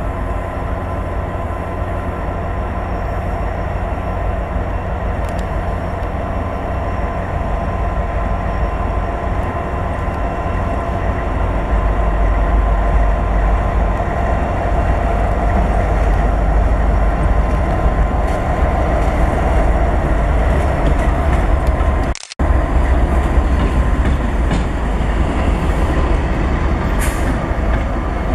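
Six diesel freight locomotives running as they approach and pass, with a low steady engine rumble and a few fixed tones that grow louder about halfway through. About three quarters in, the sound cuts out for an instant with a click, the camcorder taking a still photo.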